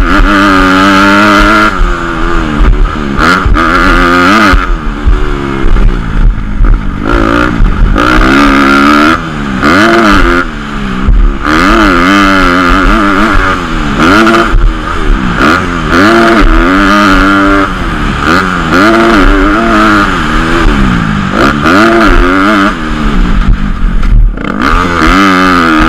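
A motocross dirt bike's engine ridden hard, its pitch climbing and dropping again and again as the rider accelerates, shifts and rolls off between corners.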